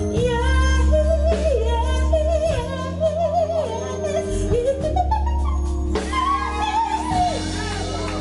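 Female singer performing live, ornamenting long notes with wavering runs and vibrato, over a band of keyboard, electric guitar and drums with steady low bass notes.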